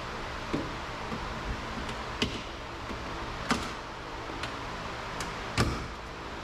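Plastic door trim piece being pried off: a handful of sharp clicks and knocks a second or two apart, the loudest near the end, over a steady low hum.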